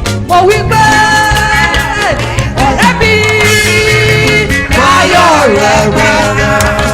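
Yoruba gospel music from a band: a lead melody of long held notes, one wavering with vibrato about five seconds in, over a steady bass and drum beat.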